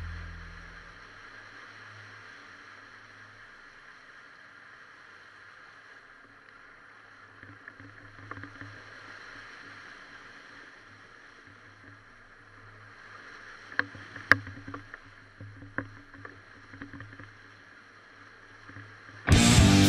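Faint engine running steadily at low revs, with a few sharp clicks and knocks about two-thirds of the way through. Music fades out in the first second and cuts back in loudly just before the end.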